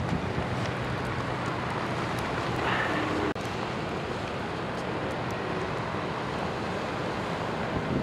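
Steady rushing noise of vehicle traffic on a snow-covered road, with wind on the microphone and a faint steady low engine hum. The sound cuts out for an instant a little over three seconds in.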